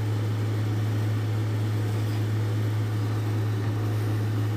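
A steady low machine hum with a hiss over it, unchanging throughout.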